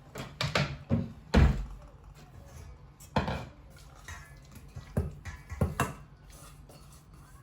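Kitchen utensils knocking and clinking against dishes: about eight separate short knocks, the loudest about a second and a half in.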